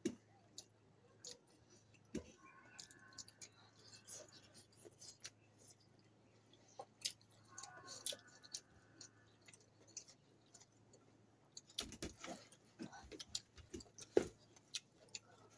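Quiet eating by hand: fingers gathering rice on plates, chewing and lip smacks, with scattered small clicks that come thicker near the end.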